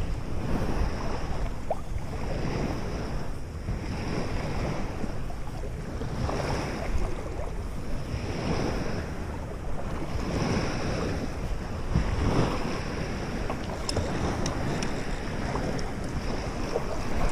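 Wind buffeting the microphone over choppy lake water lapping in small waves, the noise swelling every couple of seconds.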